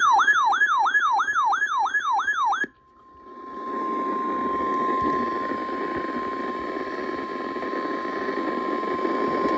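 A loud siren-like alert tone sweeps rapidly up and down, about three times a second, and cuts off after nearly three seconds. Then the steady single-pitch NOAA Weather Radio warning alarm tone sounds over radio static, signalling that a warning broadcast follows.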